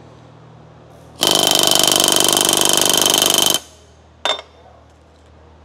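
Pneumatic rivet gun driving a solid aircraft rivet into a sheet-metal patch against a bucking bar: one long burst of rapid blows, about two and a half seconds, with a high ringing note through it, then a short second burst about half a second after it stops.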